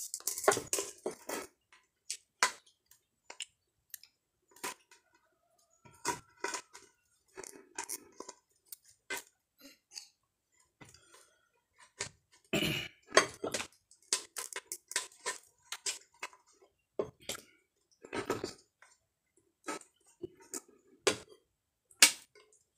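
A spoon scraping and knocking inside a blackened rice pot as cooked rice is dug out: a string of irregular clanks and scrapes, busiest about halfway through.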